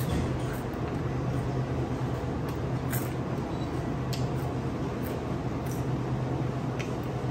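Steady low hum of indoor background noise, with a few faint clicks and taps scattered through it.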